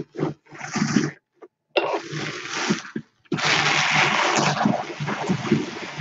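Louet Classic drum carder turned by its hand crank: the carding-cloth teeth on the drums brush through the fibre with a whooshing rush. Two short spins and a brief stop come first, then steady cranking from about three seconds in.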